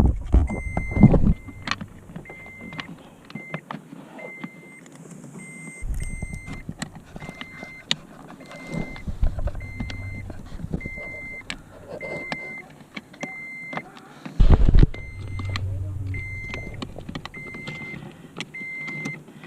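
A vehicle warning chime beeping steadily about once a second, with scattered clicks and knocks of parts being handled and a louder thump about two-thirds of the way through.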